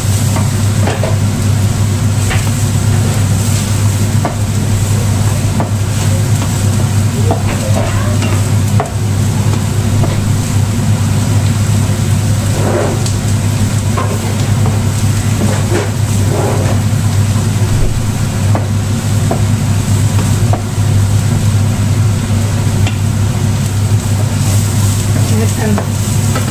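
Vegetables sizzling in two non-stick frying pans while wooden spatulas stir them, with short scrapes every few seconds, over a steady low hum.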